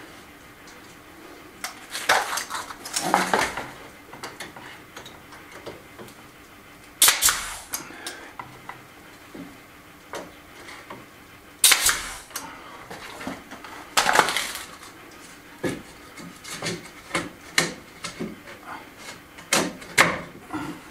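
Pneumatic nail gun firing nails into a wooden panel: several sharp shots a few seconds apart, with lighter knocks of wood between them.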